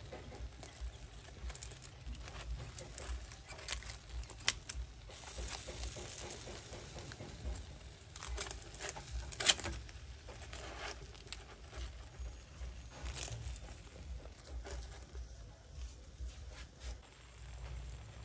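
Whole fish grilling on a wire rack over a charcoal stove, with a light, irregular crackle and patter. Metal tongs turn the fish on the rack, and a couple of sharp clicks stand out, one about four seconds in and one near the middle. A low rumble sits under it all.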